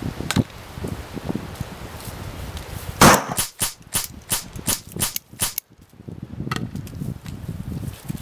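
Pistol gunfire: one loud shot about three seconds in, then a rapid string of about eight more over the next two and a half seconds. Scuffing footsteps in dry leaves come before and after the shots.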